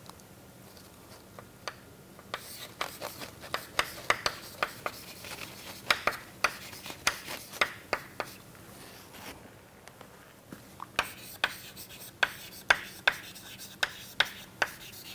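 Chalk writing on a chalkboard: quick runs of short tapping and scratching strokes as letters are written out, with a pause of a second or two a little past halfway.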